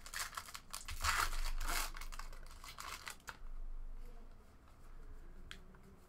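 Foil trading-card pack wrapper crinkling and tearing as the pack is opened and emptied, loudest in the first couple of seconds. After that comes a softer rustle of cards being handled, with a single small click near the end.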